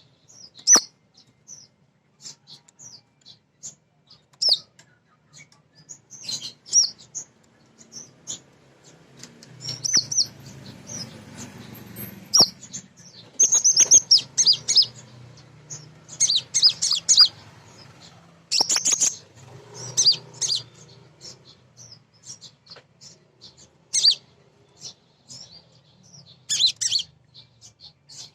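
Female sunbird chirping and twittering in quick, high-pitched bursts, clusters of rapid notes coming every few seconds, with a few sharp clicks.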